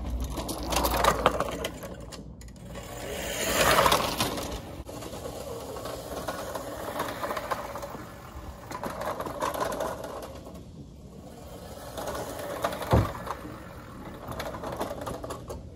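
Fiskars StaySharp Max reel mower's spinning blade reel whirring and clicking as it cuts grass, swelling and fading several times as it passes close by. A single sharp knock about thirteen seconds in.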